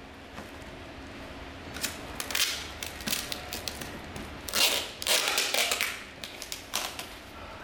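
Irregular clicks, knocks and rasping of parts being handled and worked by hand, loudest about halfway through, over a faint steady hum.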